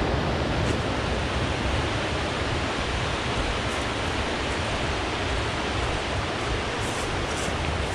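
A rocky creek rushing over small rapids: a steady, even roar of white water.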